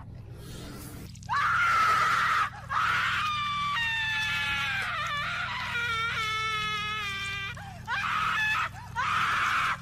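A person screaming: a series of high-pitched screams starting about a second in, with one long drawn-out scream in the middle and shorter ones near the end, over a low steady hum.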